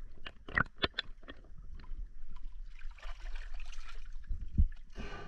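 Water sloshing and splashing against a boat's hull, with several sharp knocks in the first second and a heavy thump about four and a half seconds in, over a low steady rumble.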